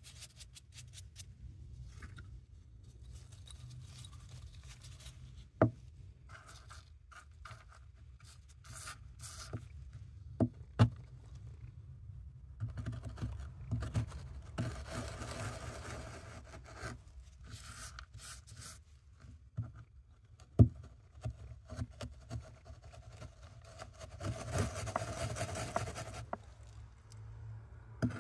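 Pieces of Neopearth naphthalene mothball being crushed and ground to powder under the base of a glass cup on a wooden board. There are a few loud sharp cracks as chunks break, and long stretches of gritty scraping, in the middle and again near the end.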